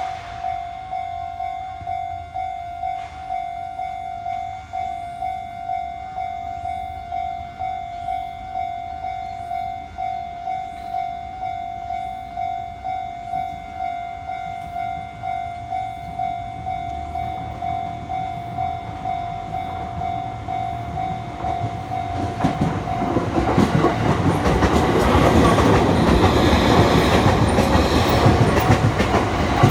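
Japanese level-crossing warning bell ringing in regular strokes, a little more than one a second. From about 22 seconds in, a Sotetsu train passes over the crossing, and its growing, louder running noise drowns out the bell.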